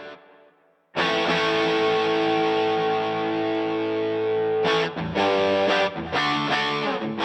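Electric guitar played through the DVII amp with a dirt pedal adding distortion: a note is choked off at the start, then a single chord rings out for nearly four seconds, followed by a run of short, choppy chords.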